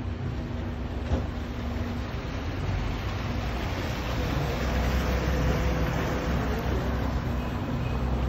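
Motorboat engine running steadily underway, a low rumble with water washing along the hull.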